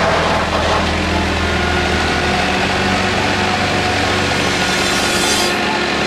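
Engines of tree-removal machinery, a tracked loader and a wood chipper, running steadily with a constant drone.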